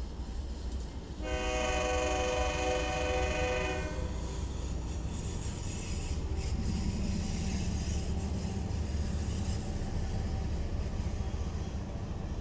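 Locomotive air horn sounding one long chord, starting about a second in and lasting about two and a half seconds, over the steady low rumble of a passing train.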